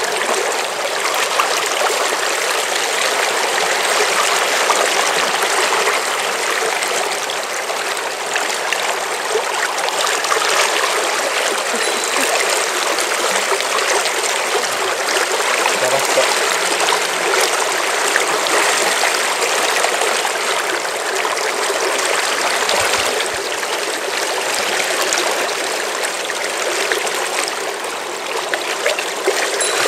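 Shallow, fast-flowing river running over a stony bed: a steady rush of water.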